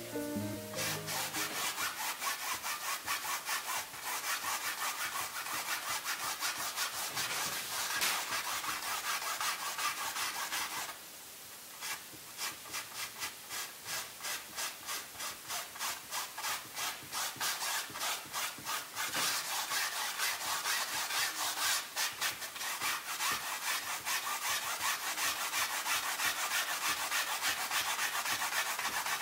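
Cotton swab scrubbing quickly back and forth over acrylic paint on canvas: a dry, scratchy rubbing made of many short strokes. About eleven seconds in it pauses briefly, then runs with slower, evenly spaced strokes for several seconds before speeding up again.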